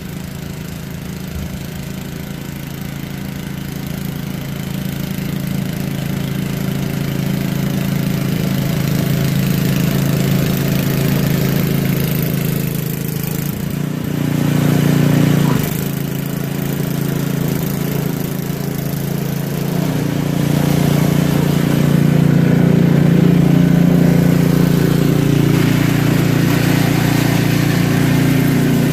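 Gasoline snowblower engine running steadily while throwing snow, growing louder over the first ten seconds, swelling briefly about halfway through, then running louder again in the later part.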